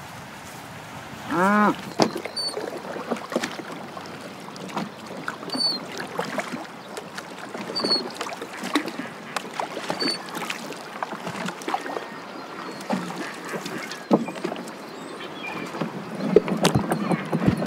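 A cow lows briefly about a second and a half in. Then a wooden rowboat is rowed through choppy water: oars knocking and splashing irregularly, with a short high squeak every two seconds or so.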